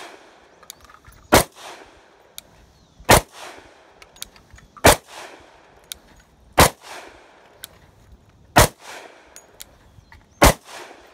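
Six shots from a Glock 29 subcompact pistol in 10mm Auto, fired at a steady pace about two seconds apart, each with a short fading echo.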